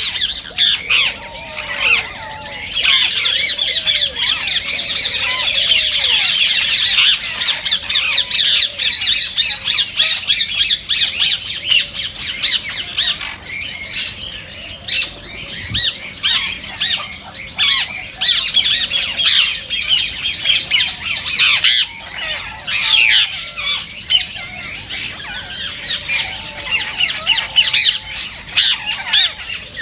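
A flock of parakeets screeching and squawking, many shrill calls overlapping with only brief lulls. Green Indian ringneck parakeets are the birds in view.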